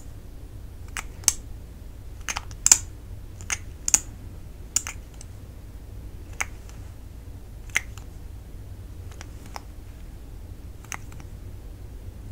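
Irregular sharp clicks from a lip gloss wand being pushed in and out of its plastic tube, about one or two a second, thinning out in the second half.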